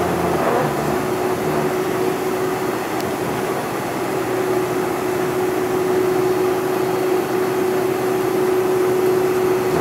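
The General Electric CF6 turbofan engines of a Boeing 747-400, heard inside the cabin, run steadily at low power as the jet taxis. The sound is an even hum with one held mid-pitched tone and no spool-up.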